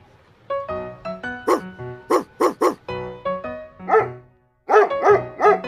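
Dog barking over background music: single barks at first, then, after a short break near the end, a quick run of about three barks a second.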